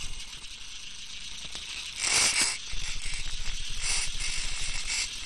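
Homemade fischertechnik RC car's drivetrain and wheels rattling and whirring as it drives over paving stones, heard from a camera riding on the car. A louder rush about two seconds in lasts about half a second.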